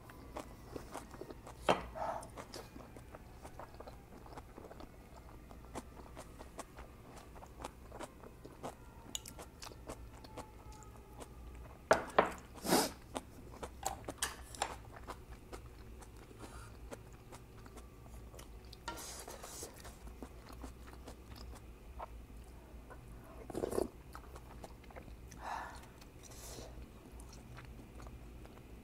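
Close-miked chewing of oyster pancake and spicy ramyun, with many small mouth clicks and a few louder sharp sounds, the loudest about twelve seconds in.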